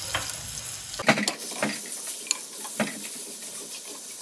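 Minced garlic sizzling in hot ghee in a non-stick frying pan, with a spoon stirring it and knocking against the pan several times, loudest about a second in.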